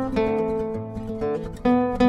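Background music of plucked acoustic guitar, notes and chords struck in quick succession, with a sharper, louder chord near the end.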